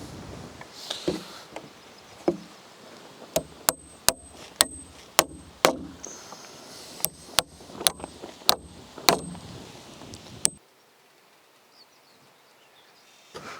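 A rapid, uneven series of sharp strikes with a faint metallic ring after each, about two a second, from fastening work on the roof: hammering or tacking down roofing material. The strikes stop abruptly about ten and a half seconds in, leaving faint outdoor background.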